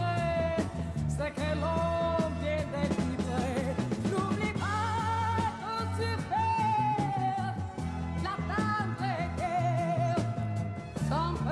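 A woman singing a pop ballad over a band accompaniment with a steady bass line, holding long notes with vibrato.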